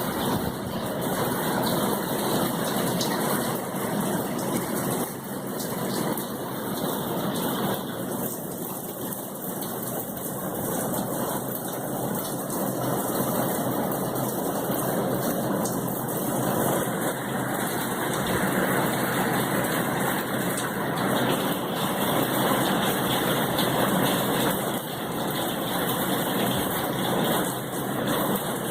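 Steady hurricane rain, a constant even hiss of downpour that swells and eases slightly.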